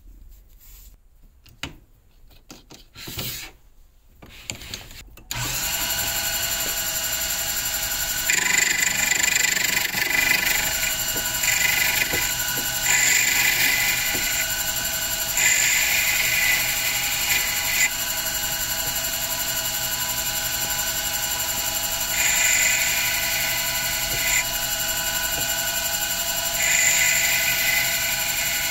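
Small metal lathe starting up about five seconds in after a few quiet handling clicks, then running steadily with a whine. From about eight seconds in, repeated stretches of a higher cutting sound come and go as the tool bit trims the layered leather cue tip.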